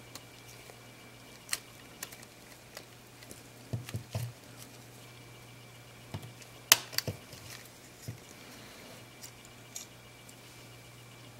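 Small plastic clicks and snaps as the front cover of a Panasonic Lumix ZS19 compact camera is prised off its body, its clips letting go; the sharpest snap comes a little past halfway. A faint steady hum runs underneath.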